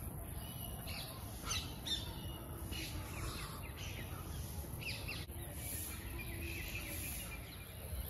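Scattered short, high chirps and squawks of calling animals in the treetops, over a steady low background rumble.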